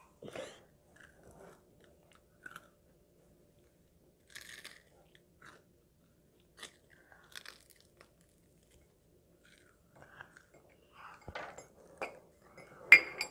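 A child biting and chewing a crispy fried piece, in scattered short crunches, with a few louder sharp clicks or knocks near the end.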